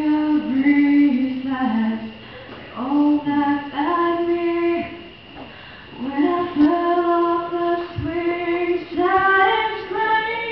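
A girl singing solo into a handheld microphone, amplified, in phrases of long held notes that step up and down, with short breaks for breath between phrases.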